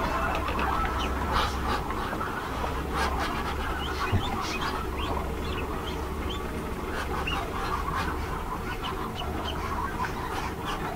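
Newly hatched chicks peeping in an egg incubator, many short high cheeps scattered throughout, over a steady low hum, with a single knock about four seconds in.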